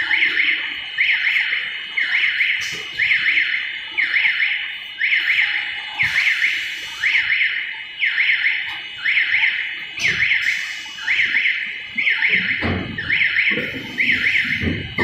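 Electronic warning alarm on a stretch film winding machine, a warbling tone repeating about once a second, over the sound of the machinery running, with a few low knocks in the second half.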